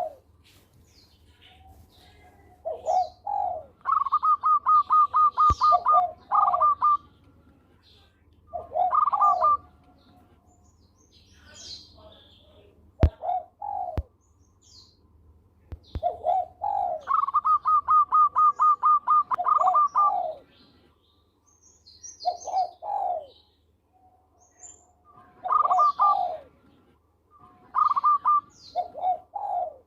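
Zebra dove cooing in repeated phrases. Each phrase is a couple of lower coos followed by a fast, even run of higher notes, and the phrase comes about seven times. Faint high chirps from other small birds and a few sharp clicks around the middle.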